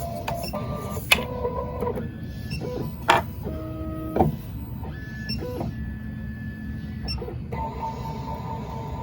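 Miracle A9 key cutting machine's stepper motors whining at steady pitches that shift every second or so as the carriage moves through an automatic calibration run. Three sharp clicks come about one, three and four seconds in.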